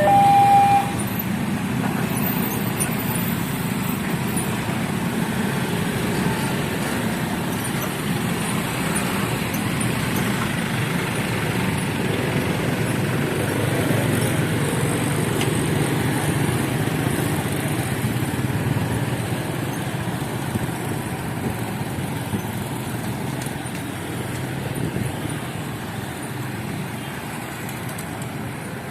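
A horn note cuts off about a second in, then a large vehicle passes with a steady rumble that builds to a peak around the middle and fades away toward the end.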